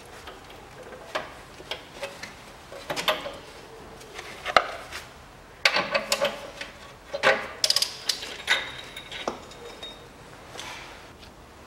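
Metal hand tools clinking, clicking and scraping against parts around an engine's exhaust manifold heat shield, in irregular knocks that are busiest in the middle. The engine is not running.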